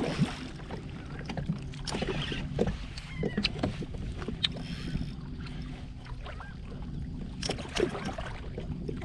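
Water lapping against a kayak hull, with scattered small knocks and clicks.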